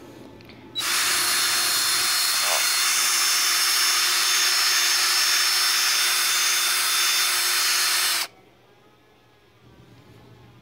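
DeWalt power tool running steadily as it is pressed against a dog as a massager. It starts about a second in and cuts off abruptly some seven seconds later.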